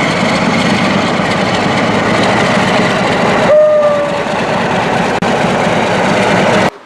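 Loud, steady rushing noise of a train running close by, with a short single-note horn blast about three and a half seconds in. The noise cuts off suddenly near the end.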